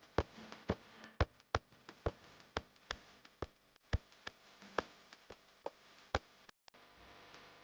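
No Frost refrigerator making sharp, irregular clicking and ticking sounds, about three a second. The clicks stop about six seconds in, leaving a faint steady hum.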